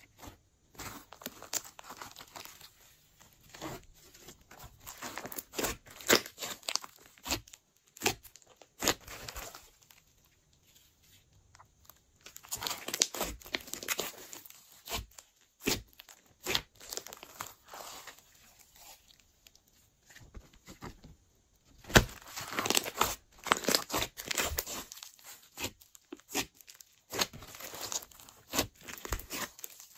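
Hands squeezing, poking and pulling apart a large lump of glossy slime, giving irregular sticky crackles and small clicking pops in clusters, with a couple of brief pauses.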